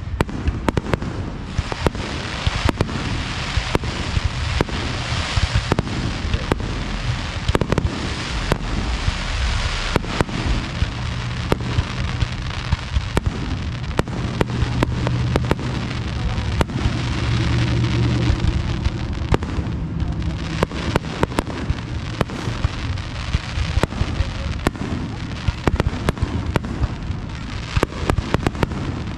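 Aerial firework shells bursting in quick succession, a dense run of sharp bangs and crackling over a continuous low rumble.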